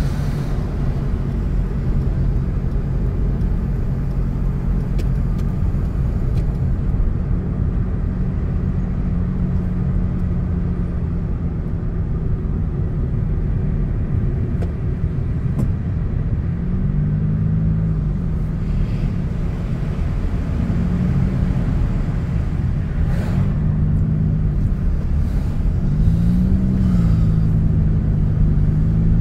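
Road vehicle's engine and tyre rumble while driving. The engine note is steady at first, then rises and falls about four times in the second half, as the vehicle speeds up and slows.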